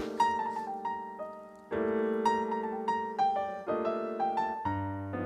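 Background piano music: a gentle melody over sustained chords, the notes struck one after another.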